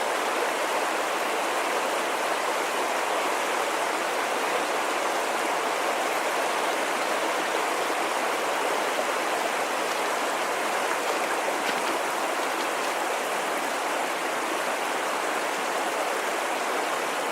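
A small mountain creek rushing steadily over rocks, an even, unbroken noise of flowing water.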